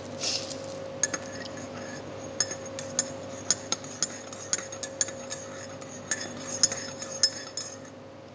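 Metal teaspoon clinking against the inside of a ceramic mug as milky tea is stirred and the tea bag pressed: a string of irregular sharp clinks with a short ring, from about a second in until near the end.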